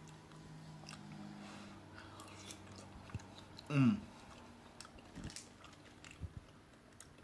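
A man chewing a mouthful of beef pot pie with his mouth closed, soft wet clicks and smacks. About four seconds in, a brief hum from his throat drops in pitch.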